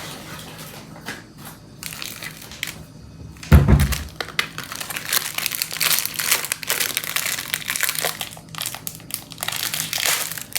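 A single low thump, then a paper microwave-popcorn bag crinkling and rustling as it is handled and torn open.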